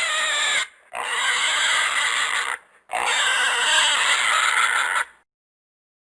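An animal calling in three long, noisy calls of about two seconds each, with short breaks between them, stopping about five seconds in.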